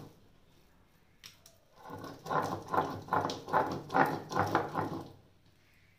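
Stone pestle crushing raw fish flesh on a stone grinding slab (pata), in a run of rhythmic strokes about three a second that starts about two seconds in and stops after about five seconds.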